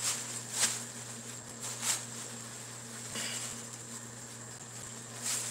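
Quiet kitchen room tone: a steady low electrical hum with a few faint clicks.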